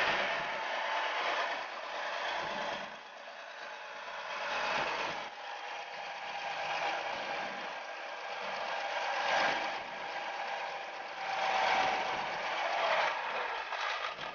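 Volvo D7D inline-six diesel engine running during its break-in. A steady mechanical running noise whose loudness swells and dips.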